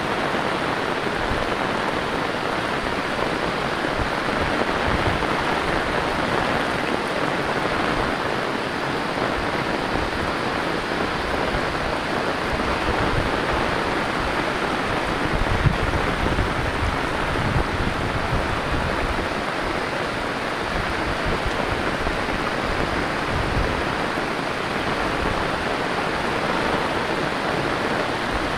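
Heavy rain pouring down, a dense steady hiss of rain on the road, roofs and vegetation. There are low rumbles a couple of times, around the middle and again later on, and one brief knock about sixteen seconds in.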